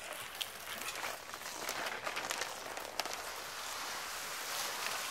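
White de-icing granules pouring from a plastic bag onto porch steps, making a dense pattering of many small ticks.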